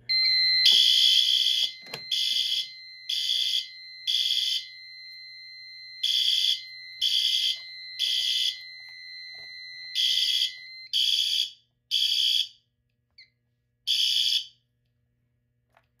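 Fire alarm horns, System Sensor SpectrAlert Advance, sounding the temporal-3 evacuation code: three short blasts a second apart, then a pause, repeated, with the ANN-80 annunciator's built-in sounder giving a steady high beep underneath. The steady beep stops about eleven seconds in and the last horn blast ends about fourteen seconds in, as the alarm is silenced.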